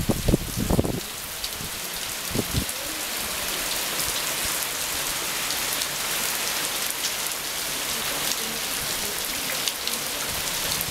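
Heavy rain falling, a steady even hiss, with a few low bumps in the first second.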